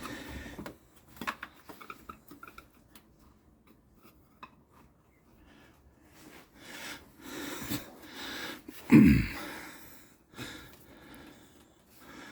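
Socket-type oil filter wrench on a ratchet extension being worked up onto the oil filter: light metal clicks, taps and rubbing as it is fitted. A short, heavier scrape or knock comes about nine seconds in.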